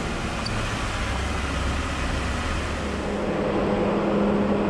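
Off-road vehicle's engine running as it drives up a rocky dirt trail, the engine note strengthening and getting a little louder about three seconds in.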